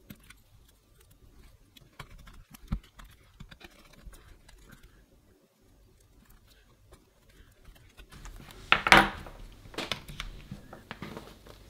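Light clicks and taps of fingers working on an opened MacBook Pro's logic board as the battery connector is pressed back into place. Louder handling noise follows near the end.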